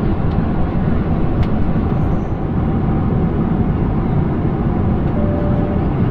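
Steady cabin noise of a Boeing 737-800 in flight: the even rush of its engines and the airflow, heard from inside the cabin.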